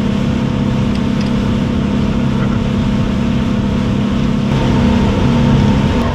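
Outboard engine of a center-console boat running steadily at speed, its low drone mixed with a continuous rush of wind and water. The engine note shifts slightly about four and a half seconds in.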